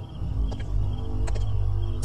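Background horror underscore: a low, steady droning music bed with held tones, with faint high chirping layered over it.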